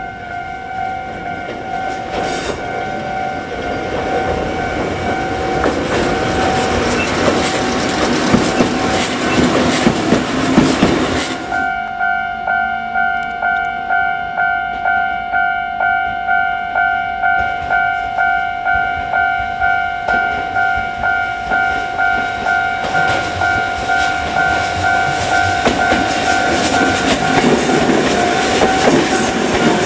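Railway level-crossing warning bell ringing while a Kotoden 1100-series electric train approaches, its running noise swelling. After an abrupt cut about eleven seconds in, the crossing bell dings about twice a second. Near the end the train's wheel and running noise rises again as it passes close by.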